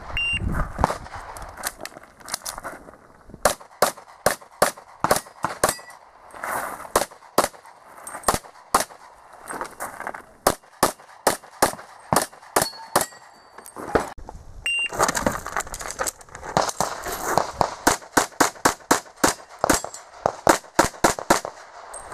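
Electronic shot timer's start beep, then strings of rapid pistol shots in quick succession, several bursts with short pauses between them, as a practical-shooting stage is shot. A few faint metallic pings among the shots.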